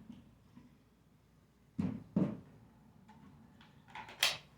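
A few short knocks and clicks of gear being handled: two close together about two seconds in and a sharper click near the end.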